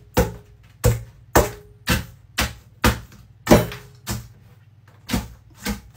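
Custard cream biscuits being crushed into chunks by pounding them with the end of a rolling pin in a stainless steel bowl. About ten sharp knocks come roughly two a second, with a short pause a little after the middle, and some leave a faint ring from the bowl.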